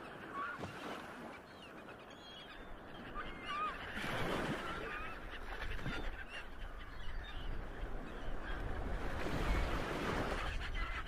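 Birds calling again and again in short squawks, over a steady rushing background with a low rumble that swells near the end.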